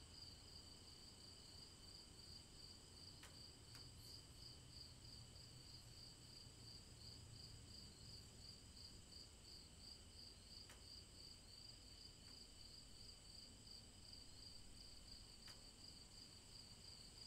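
Faint chorus of crickets: a steady, fast-pulsing high trill that begins abruptly, with a few faint ticks.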